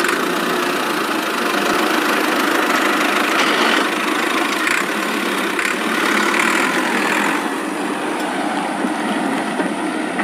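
Steady engine running sound for a toy farm tractor pulling a loaded trailer.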